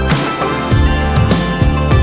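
Background music: instrumental with sustained notes, a steady pulse of low bass notes and bright strokes.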